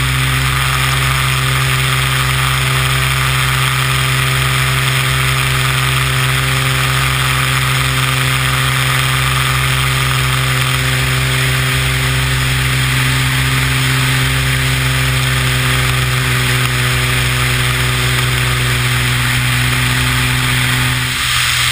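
Beechcraft BE33 Bonanza/Debonair's single piston engine and propeller droning steadily in low-level cruise, with the rush of airflow over the wing. The sound changes abruptly near the end.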